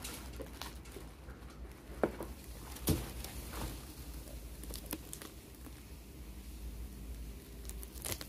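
Tissue paper rustling and crinkling while small cardboard gift boxes are handled, with scattered light taps and clicks; the two sharpest come about two and three seconds in.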